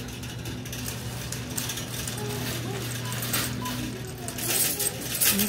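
Metal shopping cart rattling as it is pushed across a store floor, its clicking growing louder near the end, over a steady low hum.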